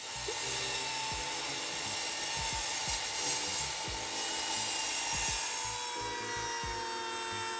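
Background music mixed with the steady noise of a power miter saw cutting wooden boards.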